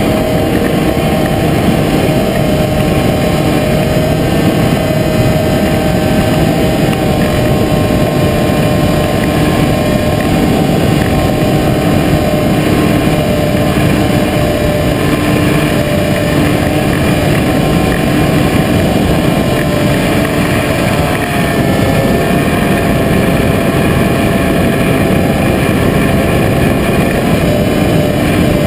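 Motor and propeller of a radio-controlled model aircraft running steadily in flight, a steady whine over wind rush, picked up by a camera mounted on the plane. The pitch shifts slightly about two-thirds of the way through.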